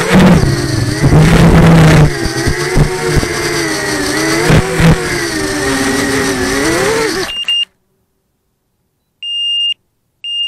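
Quadcopter's electric motors and DAL 6045 propellers whining loudly, the pitch rising and falling, with a few hard knocks, then cutting off suddenly about seven and a half seconds in. About two seconds later a high electronic buzzer starts beeping in even half-second pulses, typical of a model's lost-model alarm after a crash.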